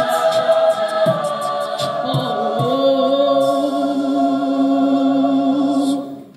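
Mixed show choir singing a cappella, with rhythmic percussive clicks for the first three seconds, then holding one long final chord that cuts off together about six seconds in.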